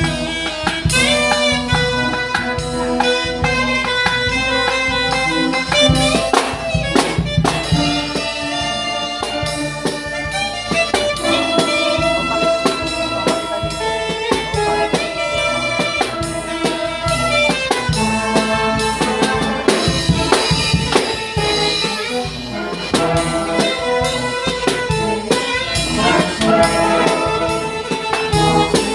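Saxophone solo over a brass band accompaniment, with drum beats marking the rhythm.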